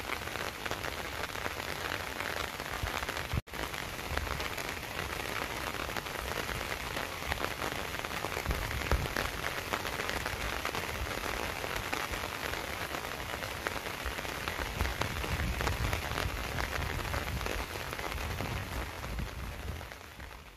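Steady rain falling on surfaces, a dense, even hiss of many drops. It cuts out for an instant about three seconds in and fades away at the very end.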